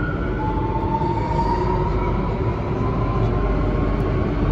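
Alstom Metropolis C830C metro train running at speed through a tunnel, heard from inside the train: a steady low rumble with a thin whine that rises slowly in pitch.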